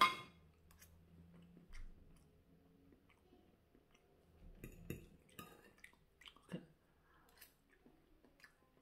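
Faint chewing of a mouthful of scrambled egg, with scattered small clicks and wet mouth sounds.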